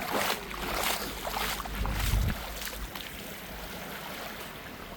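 Beach ambience: surf washing on the shore with wind buffeting the microphone, stronger in the first two seconds and then settling to a softer steady wash.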